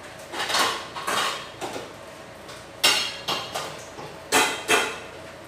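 Kitchen dishes and metal pots clattering as they are handled and set down: a string of knocks and clanks, some ringing briefly. The sharpest are two clanks about a second before the end.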